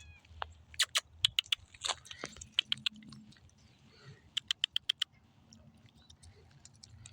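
Cats chewing and crunching food, a run of sharp irregular crunches that come in clusters.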